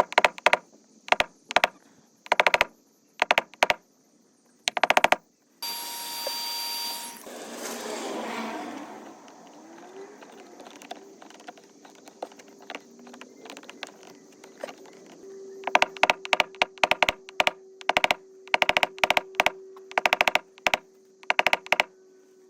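Paintless dent repair on a Ford door ding: a tapping tool struck against the door panel in quick clusters of sharp taps. About six seconds in there is a short burst of hiss, and a faint steady hum runs through the second half.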